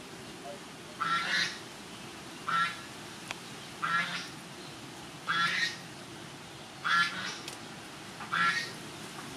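A bird calling: six short calls, evenly spaced about a second and a half apart.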